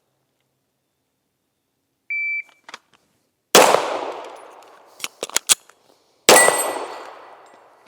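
A shot timer's start beep, then two pistol shots about three seconds apart, each echoing away. There are a few sharp clicks between the shots, and a metallic ringing follows the second shot.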